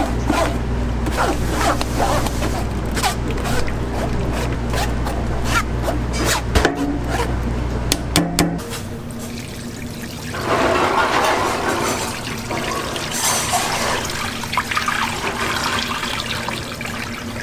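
A ladle scrapes and presses ground soybean mash against a fine-mesh metal strainer, with clicks and scrapes over a steady low hum. The hum stops about halfway through. Then thick soy milk pours and splashes onto raw chicken pieces in a steel pan.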